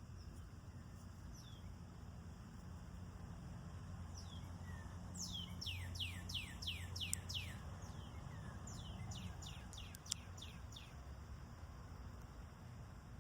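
A songbird singing two quick runs of falling whistled notes, about seven notes each, over a steady low background hum. A single sharp click comes about ten seconds in.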